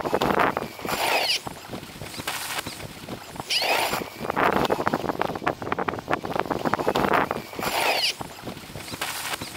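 Footsteps crunching in packed snow, slow and regular at roughly one step a second, some with a squeaky edge.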